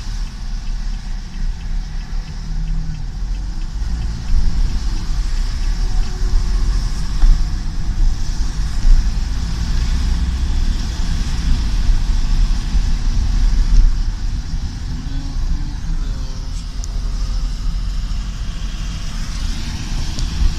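Storm wind gusting hard and buffeting the microphone, a heavy uneven rumble with surges of loudness.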